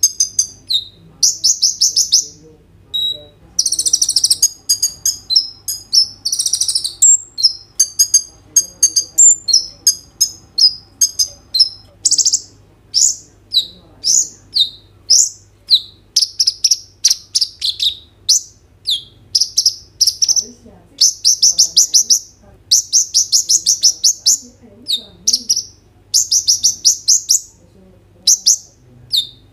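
Van Hasselt's sunbird (kolibri ninja) singing without a break: loud, high-pitched rapid trills and quick runs of sharp chirped notes, one burst after another.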